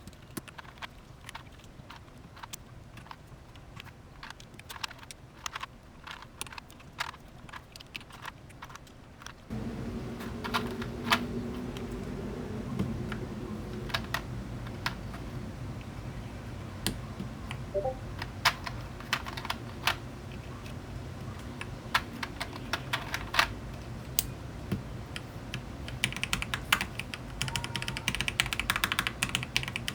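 Plastic PBT keycaps being pressed onto the linear switches of a mechanical keyboard, a string of irregular sharp clacks, with a quicker run of clacking near the end. A steady low background sound comes in about a third of the way through.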